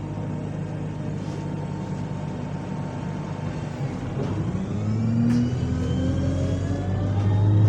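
Double-decker bus diesel engine idling steadily, then pulling away about four seconds in, with the engine note and a gearbox whine rising in pitch together as the bus gathers speed in first gear.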